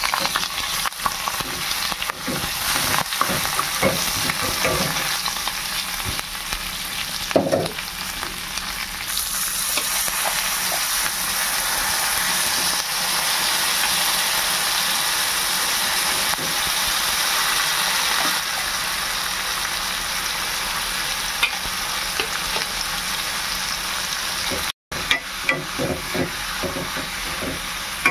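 Curry frying and sizzling in a pan, with a spatula scraping and stirring now and then. The sound cuts out for a moment near the end.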